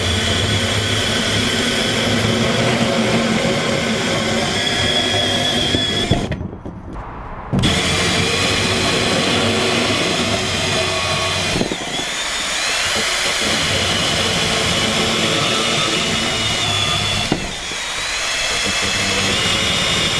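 Milwaukee M18 FUEL compact band saw (2829), a cordless brushless band saw, running and cutting through half-inch rigid steel conduit: a steady high-toned running sound. It breaks off briefly about six seconds in and then carries on.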